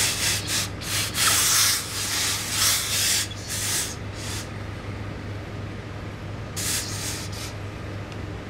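Steam iron pressing suit trousers: a run of short steam hisses mixed with the soleplate rubbing over the cloth during the first half, then a few more a little over two-thirds of the way in.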